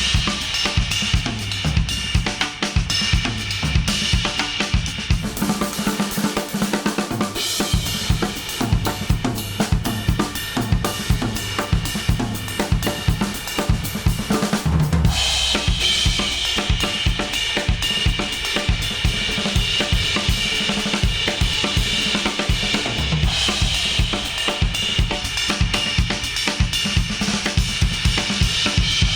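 A pop-rock song's instrumental passage with a drum kit of snare, kick and cymbals keeping a steady beat, played through Apple AirPods earbuds and recorded inside an artificial ear. The brightness of the sound shifts about 5 seconds in and again about 15 seconds in.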